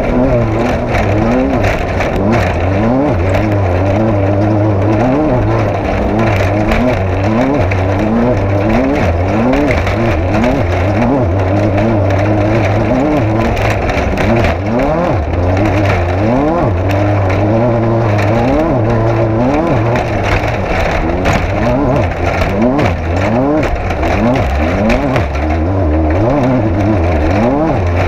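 Off-road race vehicle's engine under hard, constantly changing throttle, its pitch rising and falling over and over about once a second, with a steady clatter of knocks and rattles.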